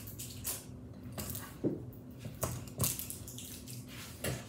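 A small plastic candy tube and its wrapper being handled and worked open by hand: about half a dozen short plastic clicks and crinkling rustles.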